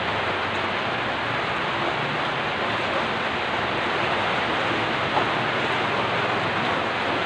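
Heavy typhoon rain pouring down in a steady, even rush that does not let up.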